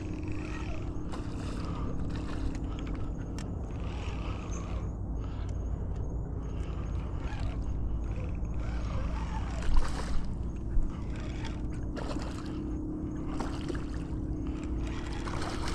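A hooked redfish splashing and swirling at the surface beside a flats boat, over a steady low hum and light water noise. A couple of short, louder splashes come about ten seconds in.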